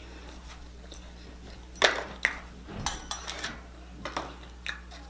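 A person chewing crunchy tortilla chips close to the microphone. There are a few sharp crunches and mouth clicks from about two seconds in, over a steady low hum.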